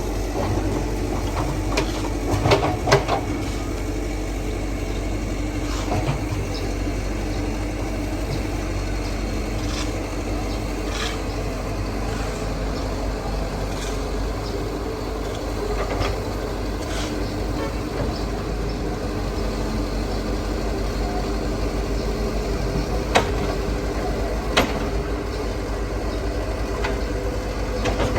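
Excavator's diesel engine running steadily, with a few sharp knocks: a cluster two to three seconds in and two more later on.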